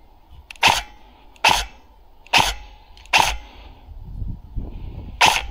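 Airsoft M4-style rifle firing single shots: five short, sharp cracks about one every second, with a gap and low rustling before the last.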